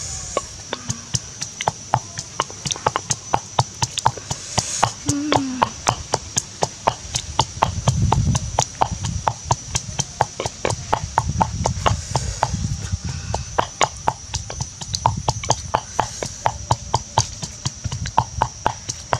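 Wooden pestle pounding in a clay mortar: a long run of sharp knocks, uneven at first, then settling into a quick steady rhythm of about three to four a second.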